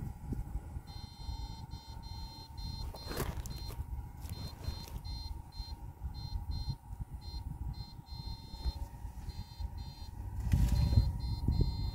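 Backpack battery electrofishing rig giving off a high electronic whine in irregular on-off pulses as current is switched to the poles, over a low rumbling noise that grows louder near the end.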